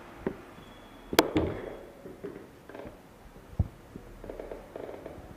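A few sharp clicks and knocks as a mobile phone is handled and put down on a wooden desk, the loudest crack about a second in, followed by a dull thump as an arm comes down on the desk.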